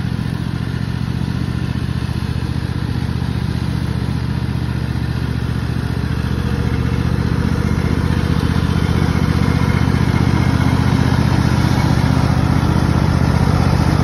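Cub Cadet riding lawn mower running steadily while mowing, with an even engine hum that grows louder about halfway through as it drives closer.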